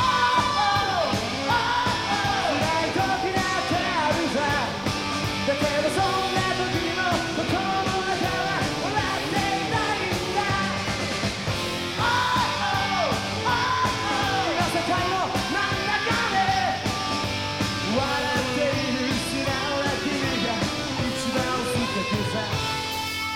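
Live rock band playing at full volume: drums, electric guitar and bass under a voice singing in a yelling, shouted style.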